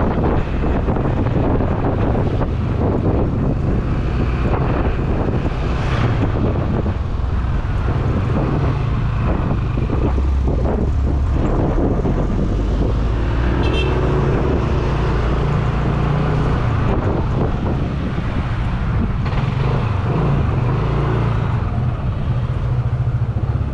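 Motorcycle engine running steadily while riding through city traffic.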